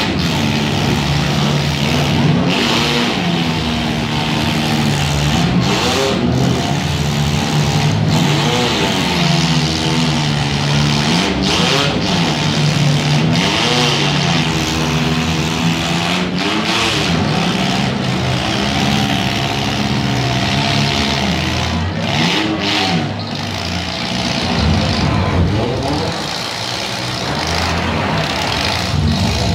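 Demolition derby cars' engines revving hard, several at once, their pitch rising and falling again and again as the cars push and ram. There are a few sharp bangs of cars hitting.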